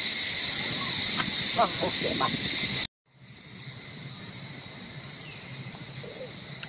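Forest insects droning steadily in a high, two-pitched shrill, with a few short pitched calls over it. The sound cuts out abruptly about three seconds in and comes back much quieter.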